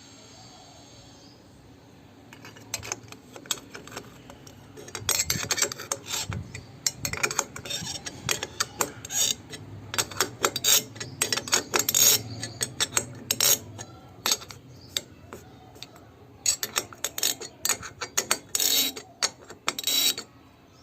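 Irregular runs of sharp metallic clicks and clinks from hand work with a tool on a scooter's chrome mirror assembly. The clicking starts about two seconds in and comes in quick bursts with short pauses.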